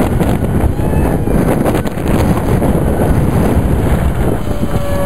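Strong wind buffeting the microphone: a loud, steady low rumble. A faint thin whine comes in near the end.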